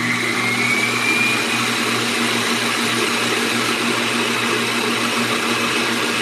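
Stand mixer motor whining up in pitch as it is sped up during the first second or so, then running steadily at high speed. It is whipping water and egg white protein powder into a keto bread batter.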